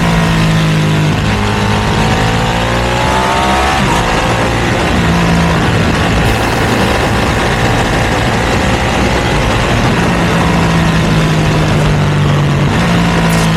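Ducati V2's L-twin engine breathing through a Termignoni exhaust, running under way. Its pitch rises and then falls over the first few seconds, then holds a steady drone.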